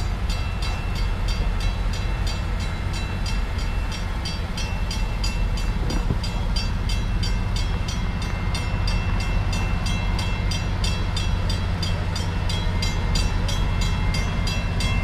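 Train rolling past with a steady low rumble and an even, rapid clicking of about four clicks a second.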